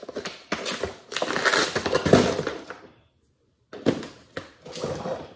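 Hard plastic pistol case and its contents clattering as they are handled and packed: a dense run of knocks and rattles for about three seconds, a brief pause, then a few more knocks.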